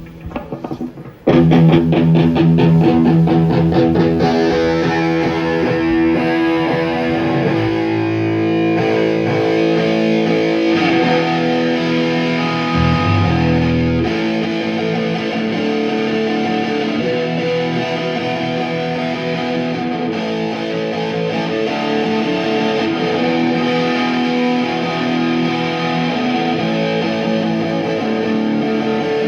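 Electric guitar played through an amplifier with distortion, strumming sustained chords for a sound check. It comes in suddenly about a second in and carries on steadily.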